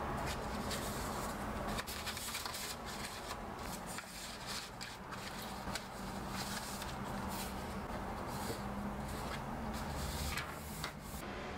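Paper rustling, with light taps and scrapes, as a kraft-paper notebook's pages are turned and pressed flat and a sticker sheet is handled. It comes in many short, irregular strokes over a steady low hum.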